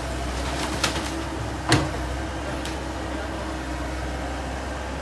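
Komatsu tracked excavator's diesel engine running steadily, with sharp knocks of concrete and brick breaking during demolition: one about a second in, a louder one just under two seconds in, and a fainter one a little later.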